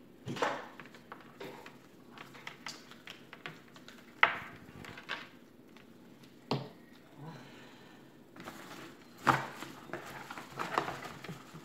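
Handling noise from a plastic laptop power adapter and its cord on a table: scattered clicks, taps and a few sharp knocks, the loudest about four and nine seconds in. Near the end comes a stretch of rustling as it goes back into a small cardboard box.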